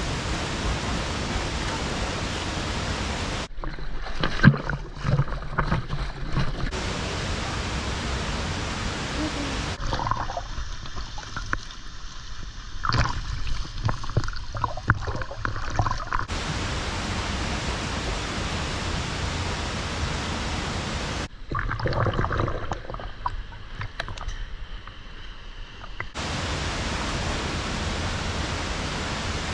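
Waterfall's rushing water, a steady even roar. It is broken at sudden cuts by duller, quieter stretches of water sound with scattered short splashes or knocks.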